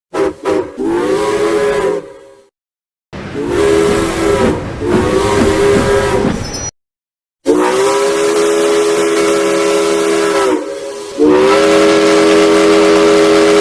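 Hiro's steam locomotive whistle sound effect: a deep whistle of several tones sounding together over a hiss of steam, each blast sliding up as it starts and sagging as it stops. A few quick toots open, then longer blasts of one to three seconds each, the last two the longest, with short silent gaps between them.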